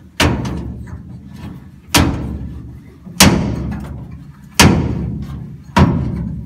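Allen key knocking against the steel steering-column mounting bracket while a bolt is tightened by hand: five sharp metallic knocks about a second and a half apart, each with a ringing tail.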